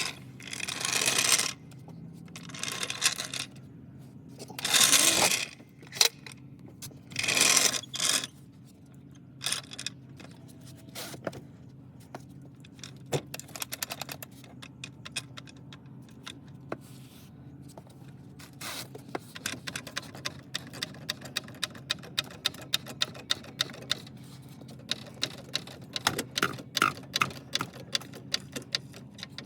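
Metal floor jack and crossbeam gear being handled: several loud scrapes in the first eight seconds, then a regular clicking about twice a second from two-thirds of the way in, like a floor jack being pumped to lift the car. A steady low hum runs underneath.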